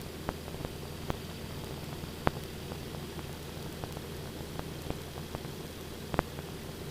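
Steady hiss and low drone in a light aircraft's cockpit or intercom audio during formation flight, with scattered sharp clicks and crackles, the loudest about two seconds in and another near the end.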